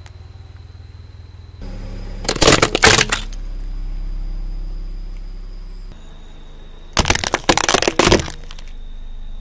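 A car tyre rolling slowly over objects and crushing them, with the car's engine humming underneath. There are two bouts of loud cracking and crunching, each about a second long: the first, about two seconds in, is a white plastic security camera's housing breaking apart, and the second comes near the end.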